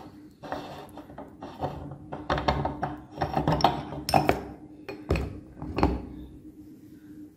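Wet ground mango pulp being scraped and rubbed off a meat grinder's perforated metal plate into a plastic bowl, in uneven strokes, with two sharp knocks of the plate against the bowl about five and six seconds in.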